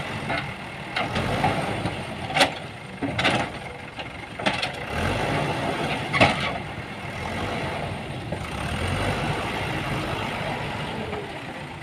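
JCB 3DX backhoe loader's diesel engine running steadily while the machine works, with four sharp knocks over the first six seconds or so.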